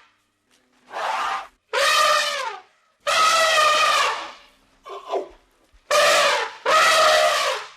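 Bleating animal calling repeatedly: six bleats with short gaps, most about a second long, one shorter about five seconds in.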